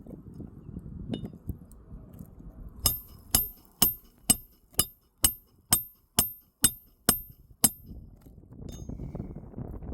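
A run of eleven sharp metallic taps, about two a second, each with a high ring: a hammer striking a metal tool or nail while working a roof shingle loose.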